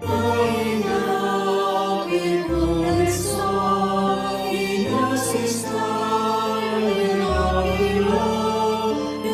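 Choir singing a slow hymn in held, multi-part harmony, the chords changing every second or two.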